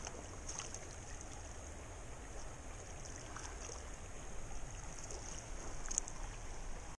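Shallow mountain creek running over rocks, a steady rushing hiss with a low rumble beneath it and a few faint ticks.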